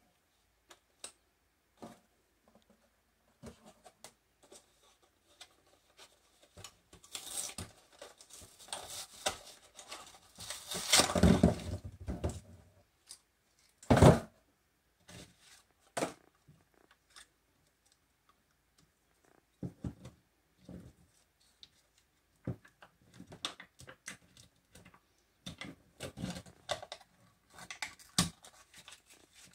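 Packaging being handled and torn open by hand: rustling and tearing of a paperboard sleeve, a single sharp knock about halfway through, then scattered crinkles as a foil lid is peeled off a plastic pickle cup near the end.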